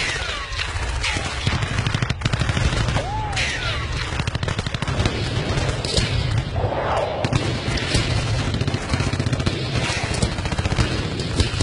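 Battle-scene gunfire from a war film's soundtrack: rapid, continuous rifle and machine-gun fire, over a steady low rumble.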